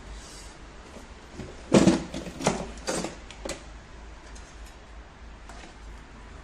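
Clatter of a metal wrench being handled at the air compressor: a quick run of knocks and scrapes over about two seconds, the first the loudest.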